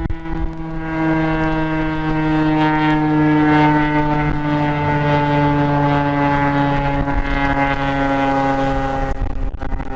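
Federal Signal STH-10 dual-tone rotating siren sounding its Attack signal, a loud two-note chord whose pitch slides slowly down and dips again near the end. Wind rumbles on the microphone underneath.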